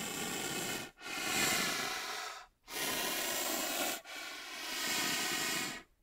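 An animal breathing heavily in a steady rhythm: four long hissing breaths, each about a second and a half, with brief pauses between them.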